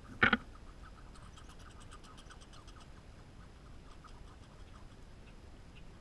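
Red squirrel chewing black oil sunflower seeds right beside the microphone, a steady run of small crunching ticks. A single sharp, loud knock comes just after the start, and a fast, high-pitched run of ticks lasts about two seconds from about a second in.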